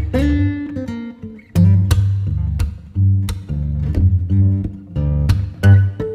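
Background music: acoustic guitar playing plucked and strummed notes over low bass notes.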